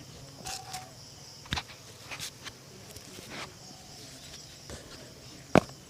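Shoe-shining handling sounds: scattered soft taps and brush or cloth scrapes, with one sharp knock near the end. Underneath is a faint steady high chirring of insects.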